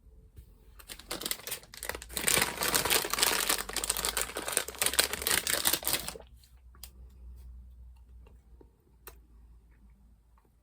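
Plastic sweet packet crinkling and rustling as it is handled, loud for about five seconds, then giving way to faint scattered small clicks.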